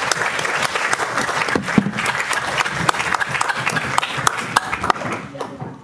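Audience applauding: many hands clapping in a dense clatter that fades away near the end.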